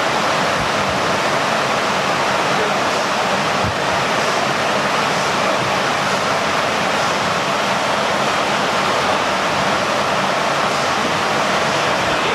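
Loud, steady rushing noise, even and unbroken, like flowing water.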